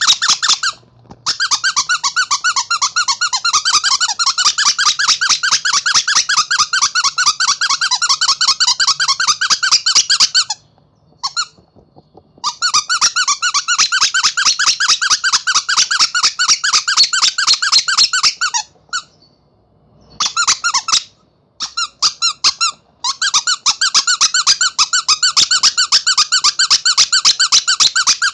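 Rubber monkey squeaky toy squeezed over and over in a fast, even run of high squeaks, with a few short pauses.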